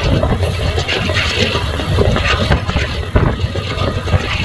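Passenger train coach running along the track, heard from an open window: a steady low rumble with constant rattling and knocking from the carriage and wheels.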